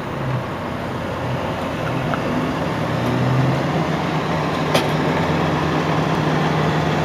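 Vehicle engine hum and road traffic noise heard from inside a car, steady and growing slightly louder. A single sharp click about two-thirds of the way through.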